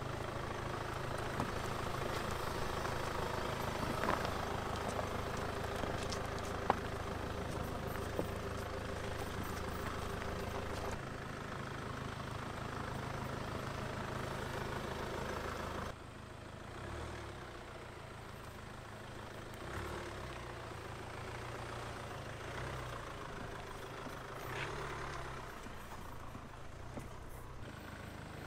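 Land Rover Discovery Sport SUV's engine running at low speed as the vehicle crawls over a rough gravel and rock trail, with tyres rolling on the loose stones. There is one sharp click of a stone about seven seconds in. The engine drops to a quieter, more uneven drone about sixteen seconds in.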